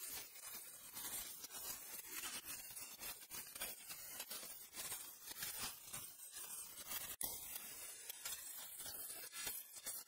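Power grinder abrading a bearing-steel knife blank: a harsh scraping hiss that rises and falls as the metal is pressed to the abrasive, cutting out briefly about seven seconds in.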